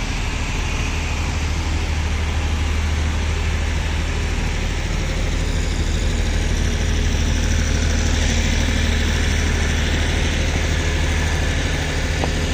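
Small portable petrol generator running steadily: a constant low engine drone with a hiss over it.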